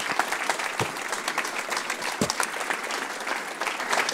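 Audience applauding steadily in a lecture hall, with two dull thumps about one and two seconds in.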